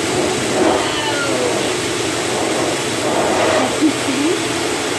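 Pet grooming dryer blowing a steady stream of air from its hose nozzle into a Pomeranian's thick wet coat, with one short louder sound about four seconds in.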